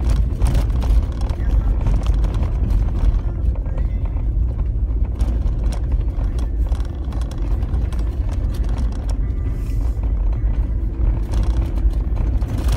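Jeep driving over a rough dirt road, heard inside the cabin: a steady low rumble of engine and tyres, with frequent knocks and rattles as it goes over the bumps.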